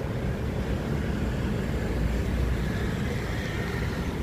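Steady outdoor street noise: a low rumble of wind on the microphone mixed with road traffic.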